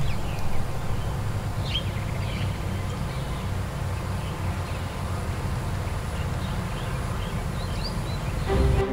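Open-air green ambience: scattered short bird chirps over a steady low hum. Music comes in near the end.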